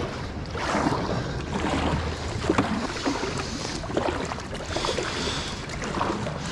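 Kayak paddle strokes: a double-bladed paddle dipping into calm water again and again, with small splashes and water rushing along the hull.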